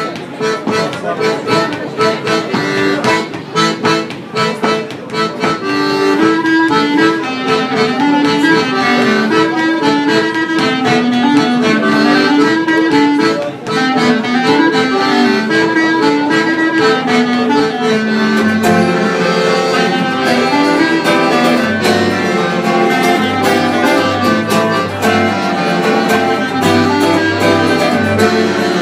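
Live traditional French folk tune played by a small ensemble: diatonic button accordion and clarinet carry the melody over guitar accompaniment. Deeper bass notes join about two-thirds of the way through.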